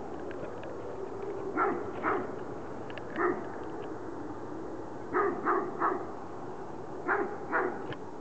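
A dog barking repeatedly, about eight short barks in twos and a three, over a steady low drone that sounds like a distant plane engine.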